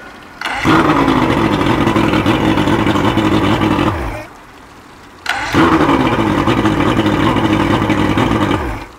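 Johnson V-6 two-stroke outboard revved up twice, each burst lasting about three and a half seconds and falling away in between. It is running strongly with a newly fitted VRO fuel pump, which cured the motor quitting on the water.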